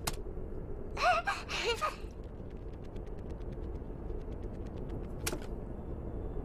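Cartoon sound effects: a short squeaky, wavering vocal sound from the cartoon fly character about a second in, over a steady low hum, with a sharp click at the start and another a little after the middle.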